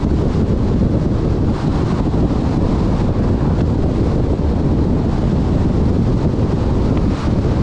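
Wind buffeting the microphone: a loud, steady rumble that does not let up.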